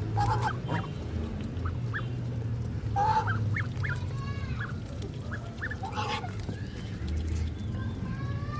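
Ducks calling in short honking quacks, three louder bursts a few seconds apart, with thin high peeps of ducklings in between.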